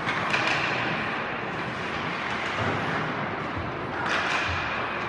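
Ice hockey game in a rink during play: a sharp knock about a third of a second in and two bursts of scraping hiss, at the start and about four seconds in, over steady arena noise.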